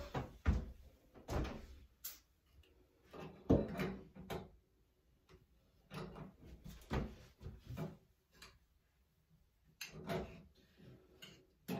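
Pliers knocking and scraping on a metal shower head as it is worked loose from the shower arm: a run of irregular short clanks and rasps.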